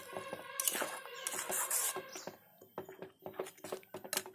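A spatula stirring and scraping thick masala paste frying in oil in a kadai, in rough strokes during the first two seconds, followed by a few sharp taps of the spatula against the pan near the end.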